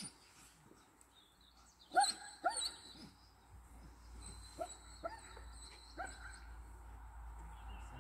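A dog barking: five short barks spread over a few seconds, the first two close together and the loudest.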